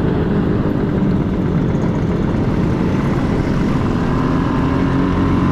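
Classic Vespa scooter engine running steadily while riding, with wind rush on the microphone.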